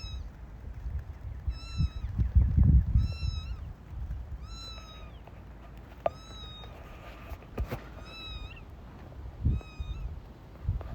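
Young kittens mewing, a series of short, high-pitched mews about one every second or so, each rising and then dropping in pitch. There are faint low knocks underneath.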